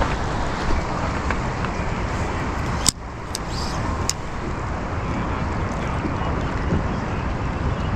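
Steady rushing of river water, an even noise with no rhythm to it. A few sharp clicks come in the middle, with a brief dip in the rush right after the first.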